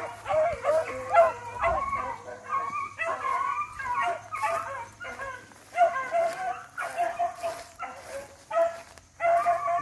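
Several beagles baying in overlapping, repeated calls: the cry of hounds running a rabbit's scent.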